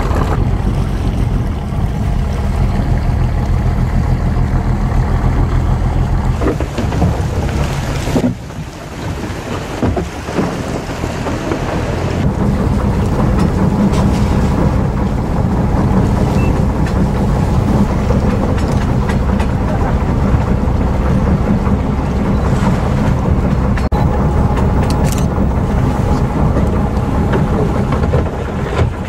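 A boat's engine running steadily with a low drone. The sound drops away briefly about eight seconds in, then comes back.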